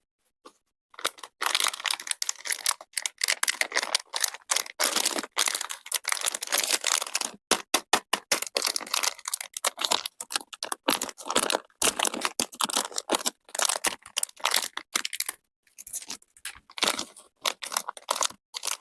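Close-miked crunching and chewing of crunchy chocolate: a dense run of sharp crackles that starts about a second in and goes on with only a few brief pauses.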